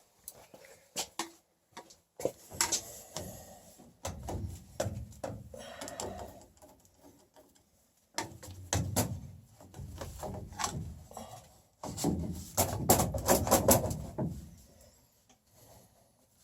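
Irregular knocks, clicks and scraping rubs from hands-on installation work, in uneven clusters with short pauses; the busiest and loudest stretch comes near the end.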